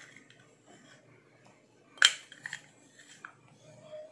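Kitchen clatter: one sharp clink about two seconds in, then a few lighter clicks, as a small sauce jar knocks against the glass mixing bowl and is set down.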